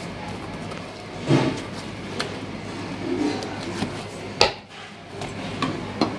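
Sushi being rolled by hand with a bamboo mat on a cutting board: scattered soft taps and knocks of the mat and roll against the board, with a sharper knock about a second in and the loudest one about four seconds in, over a steady background hum.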